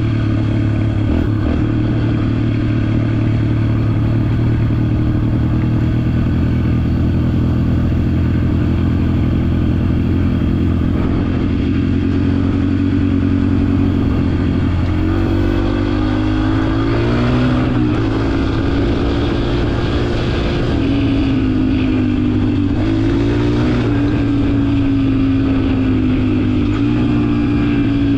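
Yamaha TT-R125 trail bike's air-cooled four-stroke single-cylinder engine running under way. It holds a steady note for the first half, then the revs rise and fall several times in the second half.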